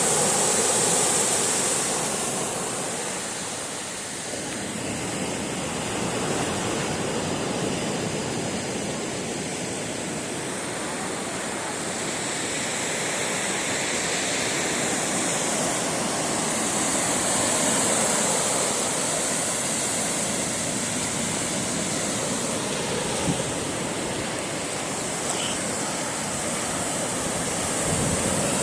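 Sea waves breaking and washing in: a continuous rush of surf that swells and eases slowly.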